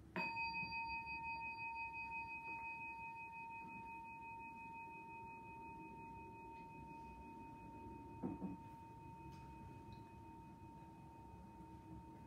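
A bell struck once, ringing out with a clear tone that wavers slightly and fades slowly. A short soft knock comes about eight seconds in.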